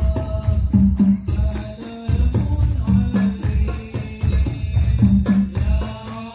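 Hadroh music played loud through a village sound system: rebana frame drums and a deep bass drum beating steadily, jingles on top, and a held sung melody line over them.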